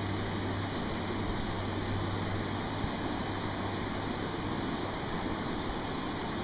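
Steady rush of river water flowing over rocks and rapids.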